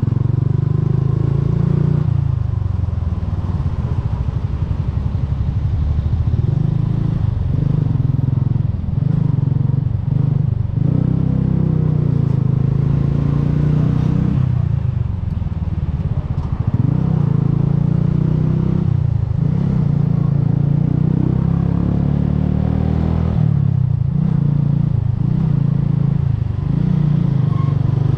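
Bajaj Boxer motorcycle's single-cylinder four-stroke engine running at road speed. The engine note eases off and picks up again every few seconds as the throttle is rolled off and on.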